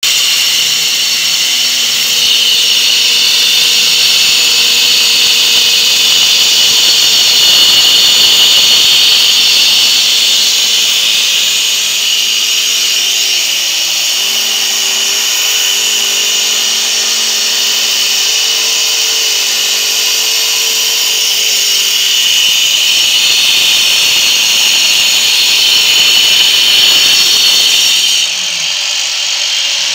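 Handheld angle grinder cutting along the edge of a marble slab with a cutting disc: a loud, steady high whine of the motor and disc grinding through the stone, dipping briefly near the end.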